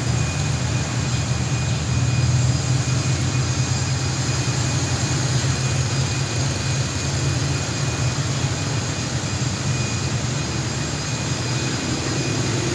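Passenger train pulling slowly out of a station, heard from aboard: a steady low engine hum over even running noise.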